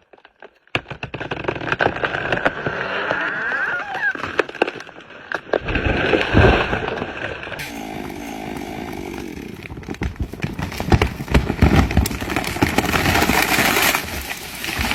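Chainsaw running and cutting wood, with many sharp cracks and snaps among the engine note. It starts after a brief silence and changes abruptly about halfway through.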